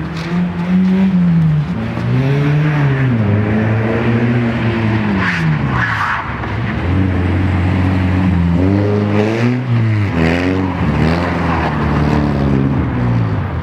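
BMW E30 318is rally car's four-cylinder engine revving hard as the car slides on ice. Its pitch rises and falls in repeated sweeps, quicker and choppier in the second half.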